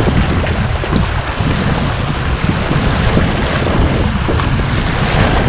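Wind buffeting the microphone with a heavy rumble, over the steady wash of sea waves.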